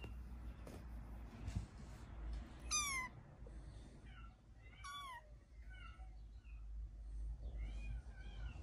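Bengal kittens mewing: a series of short, high-pitched mews with a falling pitch, the loudest about three seconds in and another about five seconds in, over a low rumble.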